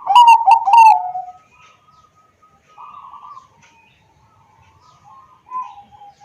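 Bangkok-type zebra dove (perkutut) cooing. A loud phrase of three quick notes comes in the first second, followed by fainter, softer coos.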